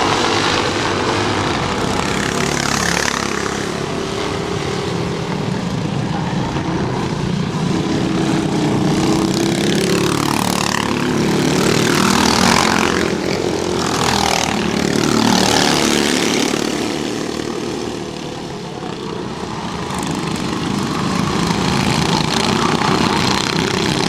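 A pack of 13 hp four-stroke kart engines racing by at full throttle. Several karts pass close in the middle, each with a rising-then-falling pitch sweep, before the sound eases off briefly and the pack rises again near the end.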